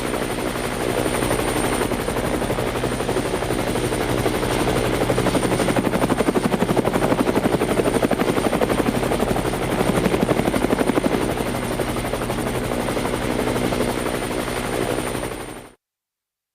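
Helicopter rotor blades chopping rapidly and evenly, over a steady engine drone and a thin high whine. The chop pulses harder in the middle, and the sound cuts off suddenly near the end.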